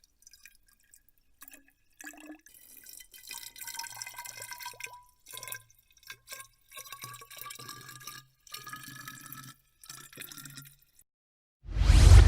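Liquid poured into a cup or vessel in several short runs, its tone rising in pitch as the vessel fills. A sudden loud rushing noise starts near the end.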